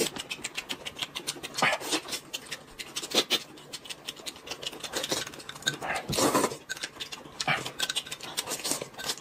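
Close-miked eating sounds: a quick run of wet chewing and lip-smacking clicks, with a longer, louder stretch about six seconds in.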